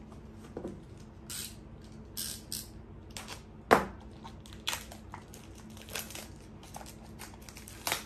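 Clear plastic wrapping being torn and crinkled off a small cardboard product box during unboxing: short bursts of rustling and crackling, with one sharp snap a little under halfway through.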